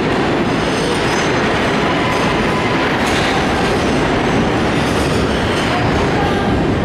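R188 subway train running in a tunnel as it pulls into an underground station: a loud, steady rumble of wheels on rail, with faint, thin wheel squeal.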